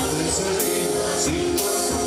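Band music with a regular percussion beat under held melodic instrument lines.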